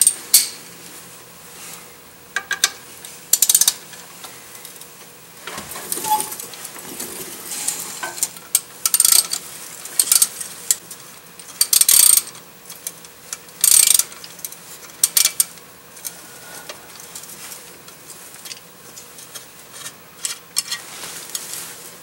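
Hand ratchet with a T30 Torx socket clicking in short bursts, a few seconds apart, as the bolt holding the metal cover under the transmission is loosened.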